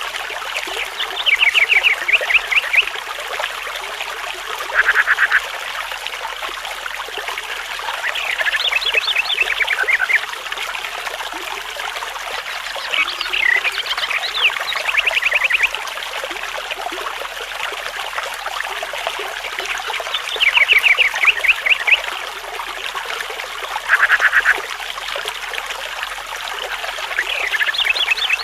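Animal calls in short rapid trills, each a quick run of pulses lasting a second or two, repeating every few seconds over a steady trickle of running water.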